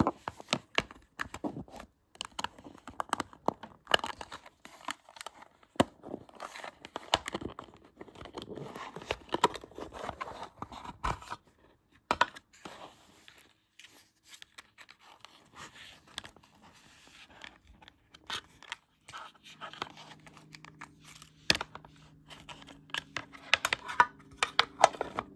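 Clear plastic model case and its foam insert being handled as an N scale model locomotive is unpacked: irregular scraping, rustling and sharp clicks of plastic and foam.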